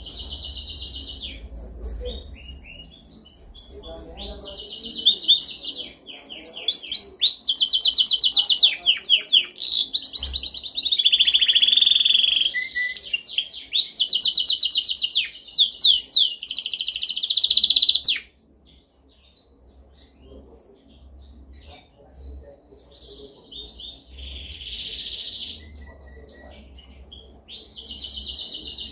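Canary singing: fast trills and rolling phrases of rapidly repeated notes. The song is loudest in the middle, breaks off abruptly about eighteen seconds in, and carries on more softly after that.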